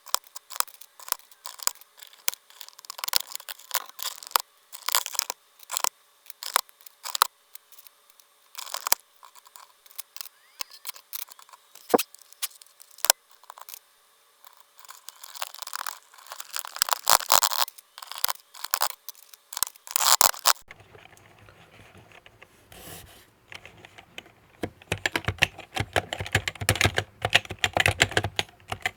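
Plastic keycaps being worked on and off a Happy Hacking Keyboard's Topre switches: irregular clicks, snaps and scrapes. About 25 seconds in, rapid typing on the keyboard begins.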